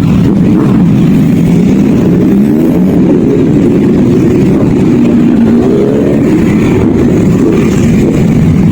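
Motorcycle engine running on the move, its pitch rising and falling with the throttle over a low rumble.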